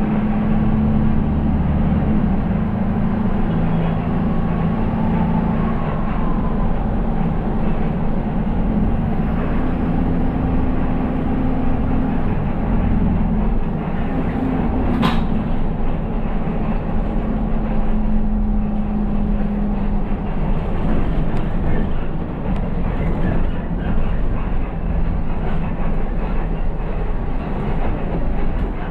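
City bus engine and road noise heard from inside the cab while driving: a steady low drone whose pitch steps up and down a few times as engine speed changes. A single sharp click about halfway through.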